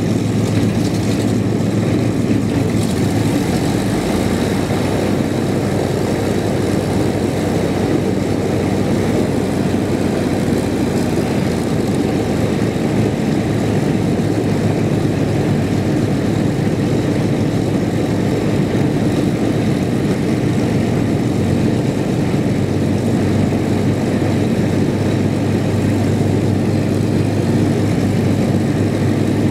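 The de Havilland Mosquito's two Merlin V12 piston engines idling steadily on the ground, propellers turning.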